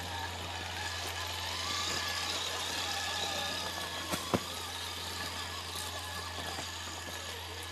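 Traxxas TRX-6 6x6 RC crawler's electric motor and drivetrain whining as it crawls over loose stones, over a steady low hum, with two sharp knocks a little after four seconds in.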